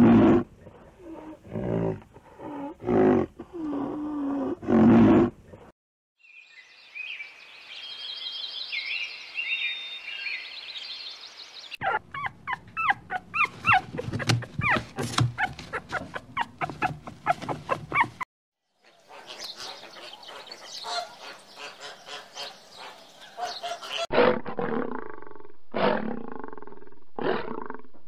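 A run of different animal calls, one after another, with pauses between them. Loud pitched calls come first, then high chirping, then a long stretch of rapid short cries. Near the end a lioness gives a series of short, loud roars.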